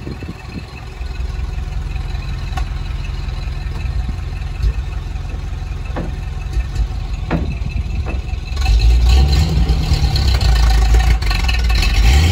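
1946 Ford farm truck's engine idling steadily with a low rumble, growing clearly louder about two-thirds of the way through.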